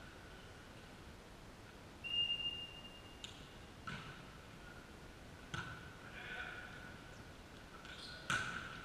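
A referee's whistle gives one short blast, then a volleyball is struck several times in the hall during the rally that follows: the serve and passes, with a hard hit near the end.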